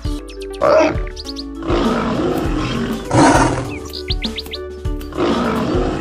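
Cartoon background music with several big-cat roars and growls over it, from a lion and a tiger. A quick run of high chirps comes about four seconds in.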